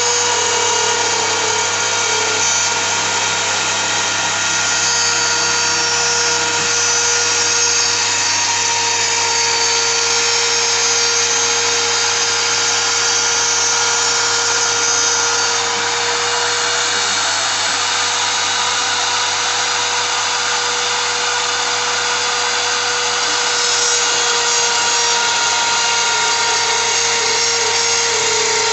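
CNC router spindle running with a steady whine while its bit cuts PVC, an even hiss of cutting under the tone without a break.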